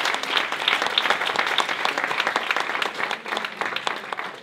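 Audience applause, many hands clapping, which thins out and fades toward the end.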